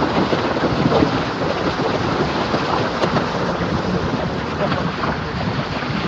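Wind buffeting the microphone at an open car window, over the steady rumble of the car rolling along a rough, stony track.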